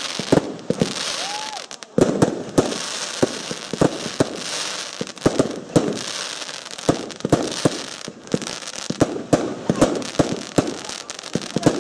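Fireworks display: aerial shells launching and bursting in quick succession, with sharp bangs several times a second over a steady crackling hiss. A short lull about a second and a half in ends with a loud bang.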